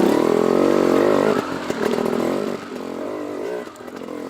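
Enduro dirt bike engine revving up and down under load as the bike rides off. It is loudest for the first second and a half, then settles lower and keeps varying in pitch.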